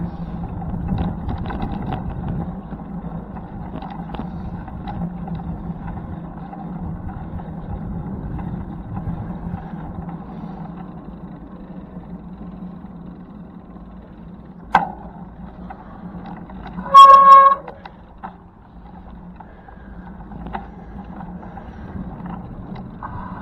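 A horn sounds one short, loud toot about seventeen seconds in, over a steady background rumble. A single sharp click comes about two seconds before it.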